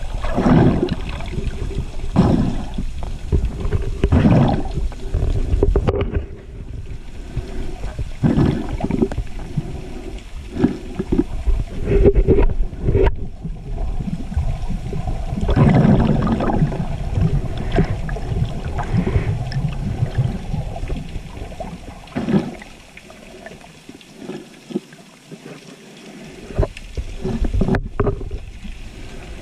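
Underwater camera sound: water rushing and sloshing around the housing in irregular surges every couple of seconds, quieter for a few seconds near the end.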